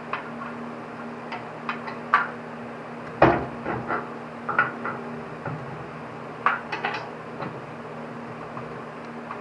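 Metal parts clinking and knocking as the funnel spreader's shaft and bolt are handled during reassembly: scattered light clicks, one heavier knock about three seconds in and a quick run of clinks near seven seconds, over a steady low hum.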